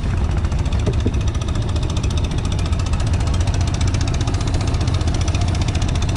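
Small boat engine running steadily, with a fast, even knocking beat.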